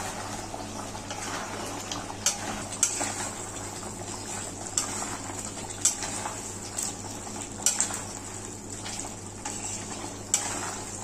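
Spatula stirring chicken curry in a kadai: irregular sharp clinks and scrapes of the spatula against the pan over the low sizzle of the cooking gravy.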